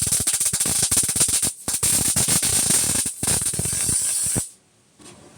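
Electric arc welding on the mini bike's steel gooseneck: a loud steady crackle and hiss, broken twice by a brief pause, then cut off sharply near the end as the arc is stopped.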